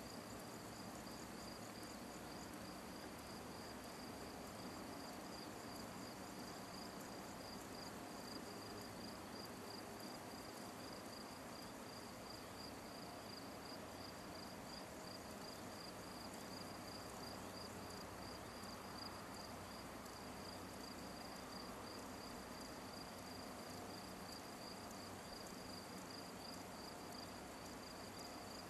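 Insects chirping steadily in a high, fast-pulsing trill, over a soft outdoor hiss.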